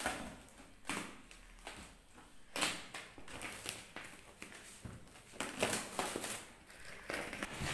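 Clear plastic wrap being cut with a knife and pulled off a cardboard parcel: irregular crackling and rustling with several sharp snaps.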